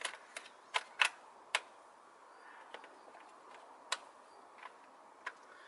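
Ratchet wrench with a 10 mm socket clicking as it loosens a bolt: sharp single clicks at uneven intervals, five in quick succession in the first second and a half, then a few more spaced out.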